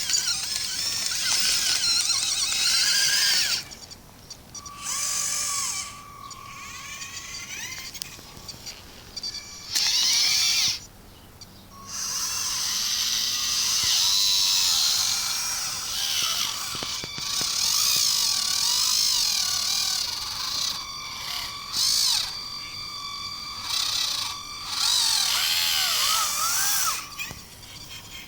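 High-pitched whine of the electric motors and hydraulic pumps of radio-controlled model construction machines, starting and stopping several times, its pitch rising and falling as the machines are driven and their arms worked.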